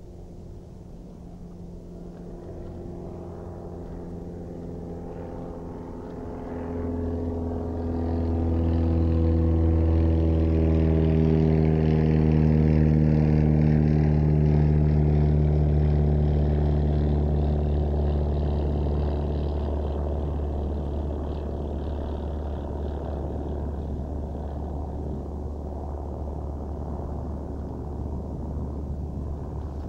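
An engine-driven vehicle droning past: a steady motor hum that grows louder for about ten seconds, holds, then slowly fades away.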